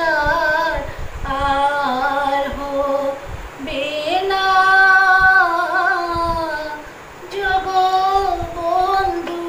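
A woman singing a Bengali devotional song solo, with no accompaniment. She holds long notes joined by slow sliding ornaments, pausing briefly about three and a half seconds in and again near seven seconds.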